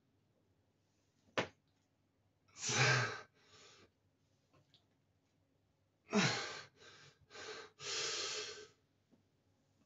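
A man breathing hard from exertion during leg exercise, in loud, forceful breaths: two around three seconds in and four in quick succession from about six seconds. A single sharp click or tap comes about a second and a half in.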